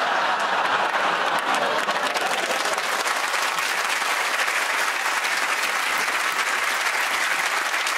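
Studio audience applauding, a dense, even clapping that holds at a steady level.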